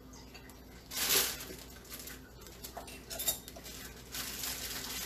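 Kitchenware clattering and clinking: a few short knocks and rattles of dishes and utensils being handled on the counter. A steady hiss sets in near the end.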